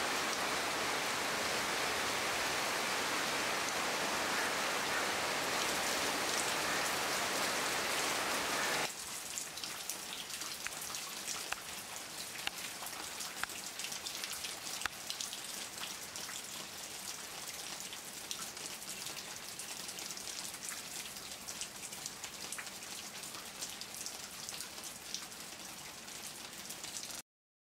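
Rain falling on garden foliage: a dense, even hiss for about the first nine seconds, then, after an abrupt change, lighter rain with many single drops ticking on leaves. It cuts off suddenly near the end.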